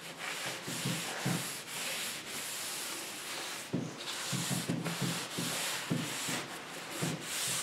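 Cloth rag rubbing over a pine cabinet in repeated back-and-forth strokes, wiping on a polyurethane finish.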